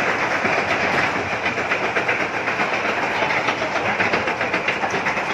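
Amusement-ride car rumbling along its track, with a fast run of even clacks from about a second and a half in.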